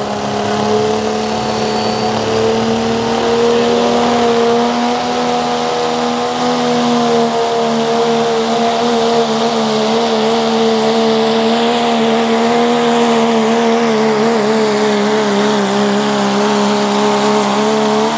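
Modified Cummins inline-six diesel in a Dodge Ram pulling truck, held wide open at high revs under full load while it drags the pulling sled. The engine note is loud and nearly constant, wavering slightly through the pull.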